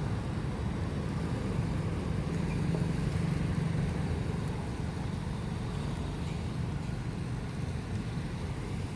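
Street traffic: a motor vehicle's engine passing, loudest a few seconds in, over steady road noise.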